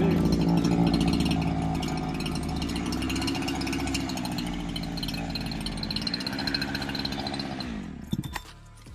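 A smaller Husqvarna two-stroke chainsaw cutting through an oak log. Its engine pitch dips under load and recovers several times, then winds down and stops about eight seconds in.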